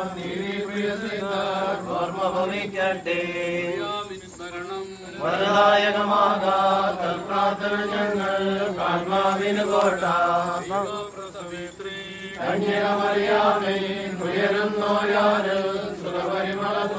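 Malayalam Orthodox liturgical chant, sung as a slow melodic line, with brief breaks about five and twelve seconds in.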